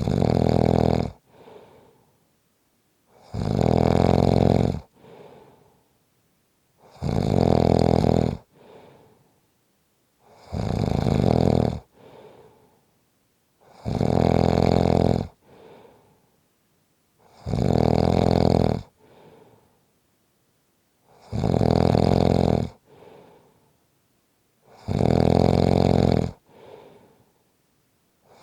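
A sleeping person snoring loudly in an even rhythm: about eight snores, one every three and a half seconds or so, each lasting about a second and a half and followed by a much fainter breath out.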